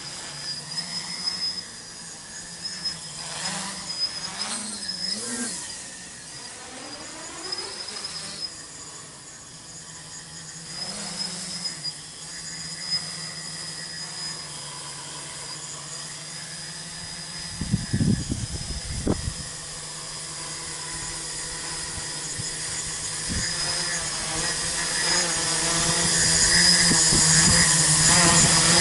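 Tricopter's three 900 kV brushless motors and 8-inch carbon-fibre propellers buzzing in flight, the pitch rising and falling with throttle in the first few seconds, then growing steadily louder over the last several seconds as it comes in close. A couple of brief low thumps about 18 seconds in.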